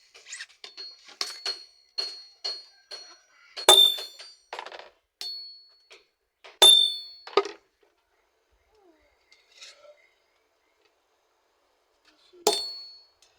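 Hammer striking metal on an anvil: a quick run of light ringing taps, then three heavy blows that ring out, the last one after a few quiet seconds.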